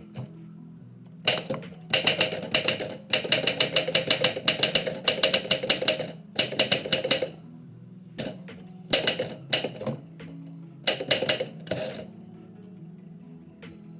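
Typewriter keys striking in quick runs of clacks, three bursts of typing with short pauses between, the longest near the start. Quiet background music runs underneath.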